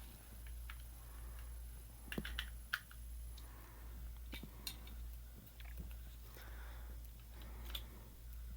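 Faint, scattered clicks and taps of plastic puzzle-ball pieces being handled and fitted together, with a quick cluster of clicks about two seconds in.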